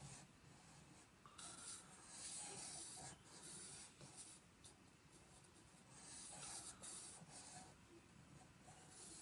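Black marker pen drawing on sketchbook paper: faint, scratchy strokes of the tip across the page, in a longer stretch from about one and a half to three seconds in and another about six seconds in.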